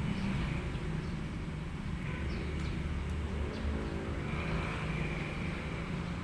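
A steady low engine rumble, like a motor vehicle running, with a faint pitched hum that comes up in the middle and fades again.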